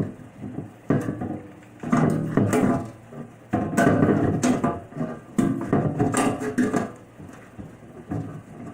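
Knocking and clattering of metal as a refrigerator's internal aluminium freezer compartment is worked open and bent, in irregular bursts about every second.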